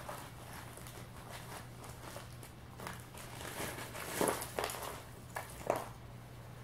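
Faint rustling and a few light clicks of someone handling things while fetching jumper wires, over a steady low electrical hum.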